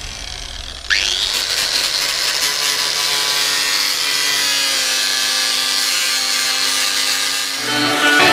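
Angle grinder spinning up about a second in with a quick rising whine, then grinding steadily against the frame tube of a 1986 Kawasaki KX125, dressing back the cracked frame before it is welded. Music comes in near the end.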